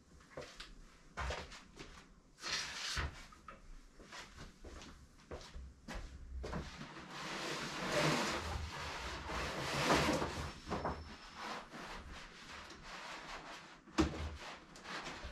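Scrapes, knocks and sliding noises of someone moving about in a small hard-walled room, with two longer rushing swells in the middle and a sharp knock near the end.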